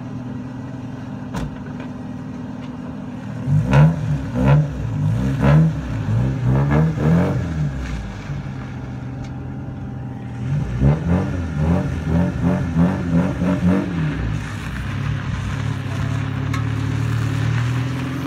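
Car engine idling steadily, then revved in quick repeated throttle blips, the pitch rising and falling each time, in two runs: one a few seconds in and another from about halfway, before settling back to idle.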